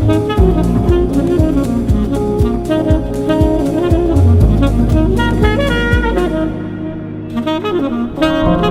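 Background music: a jazzy track with saxophone over drums and bass, the drums and bass dropping out about six and a half seconds in.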